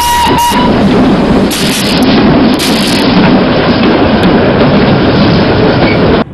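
Steam locomotive whistle sounding a steady note that stops about half a second in. It gives way to the loud, even rumble of the train running, wheels rolling on the rails under the wagon, which cuts off suddenly just before the end.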